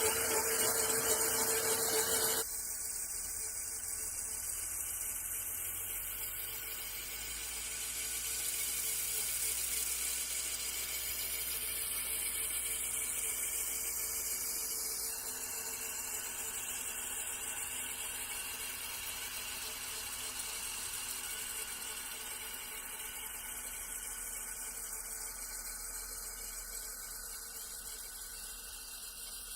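An electric Krot cultivator, driven through a frequency inverter, running with a steady motor whine. The sound drops suddenly to a quieter, even running noise about two seconds in.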